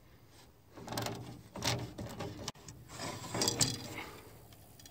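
Camera handling noise: the recording device rubbing and scraping against a shirt sleeve in two rough stretches of about a second and a half each.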